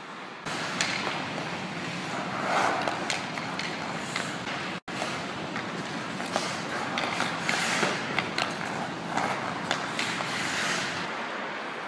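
Ice hockey skates scraping and carving on the ice, with sharp clacks of sticks striking pucks. The sound cuts out for an instant about five seconds in, then the skating and puck clicks carry on.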